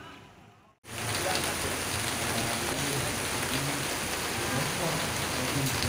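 Rain pouring down in a steady hiss, cutting in abruptly about a second in.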